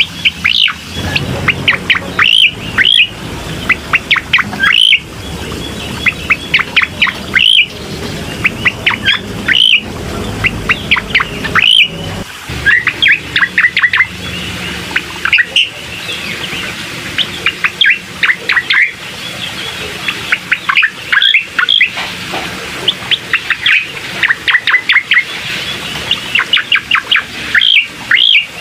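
Recorded song of a cucak koreng, a songbird kept by Indonesian bird keepers: fast bursts of sharp, high, down-sweeping chirps repeated every second or two, over a steady hiss. It is a lure recording meant to set a reluctant caged bird singing.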